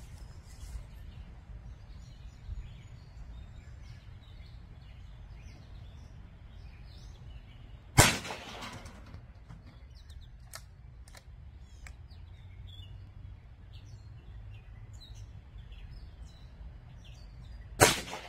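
Two shots from a BinTac M50 .50-calibre pre-charged pneumatic air pistol with a muzzle brake, about ten seconds apart, each a sharp crack with a short echo. Birds chirp faintly between the shots.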